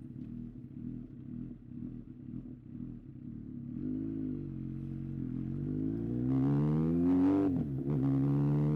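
Yamaha XJR1300's air-cooled inline-four engine running at low, steady revs, then accelerating with a rising pitch. Near the end the revs drop briefly and climb again, like an upshift under acceleration.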